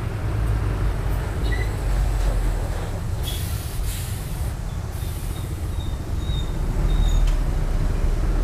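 Steady low rumble of road traffic, with two spells of loud hissing about three and five seconds in.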